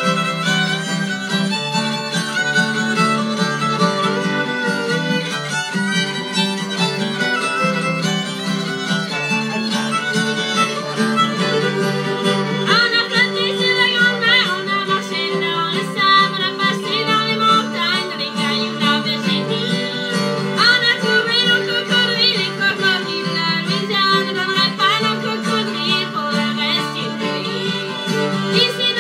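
Two fiddles and an acoustic guitar playing a Cajun tune together, the fiddles sliding between notes over the strummed guitar.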